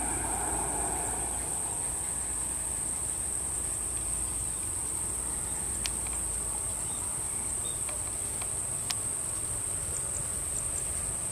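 Steady high-pitched insect chorus, with the drone of a Lockheed C-130 Hercules's four turboprop engines fading out in the first second or two as it climbs away. A couple of faint clicks later on.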